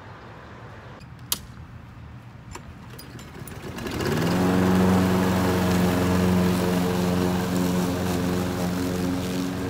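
Craftsman walk-behind gas lawn mower engine starting about four seconds in, rising quickly to speed and then running steadily as it is pushed across the grass.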